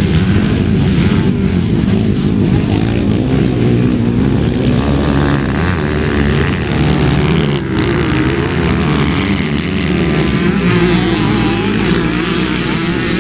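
Motocross dirt bike engines revving hard on a dirt race track, the pitch rising and falling as the riders work the throttle.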